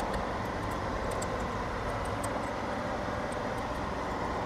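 Steady fan-like rushing noise, with a few faint light ticks.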